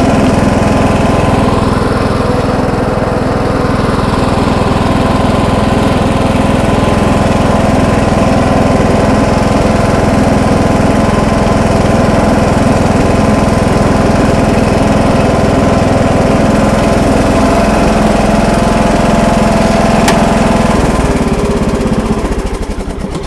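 John Deere L100 riding lawn tractor's 17 hp OHV engine running steadily as the tractor drives over grass, with the mower deck off so there is no blade noise. The engine sound falls away near the end.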